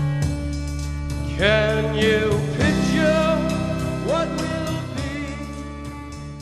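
A country-style song with guitar and a voice sliding between notes. It gets gradually quieter over the last second or two.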